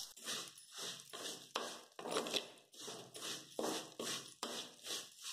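Spoon stirring and scraping vermicelli around a clay pot as it roasts in ghee on a low flame, in short faint strokes about twice a second.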